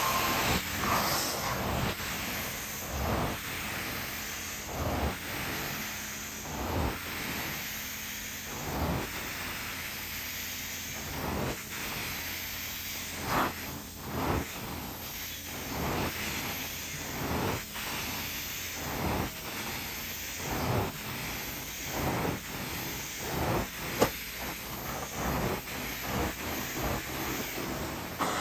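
Hot water extraction carpet cleaning: a steady hiss of the extractor's vacuum and spray, with a short surge every second or two as the wand is stroked across the carpet.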